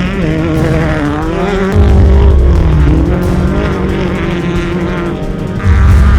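Off-road race vehicle engines revving, their pitch rising and falling. A heavy low rumble comes in about two seconds in and again near the end.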